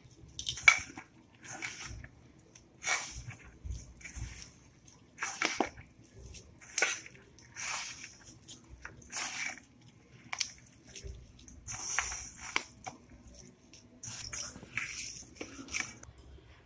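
Hand kneading a moist, crumbly mix of rice flour, grated coconut, sesame and sugar in a stainless steel bowl: irregular scrunching, squishing strokes, about one a second.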